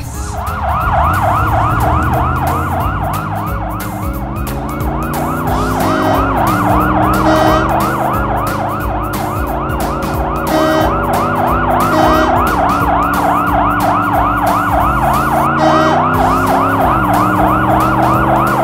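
Cartoon ambulance siren: a fast warbling wail that repeats several times a second without a break. Underneath, the vehicle's engine sound climbs steadily in pitch and drops back three times, like gear changes as it drives.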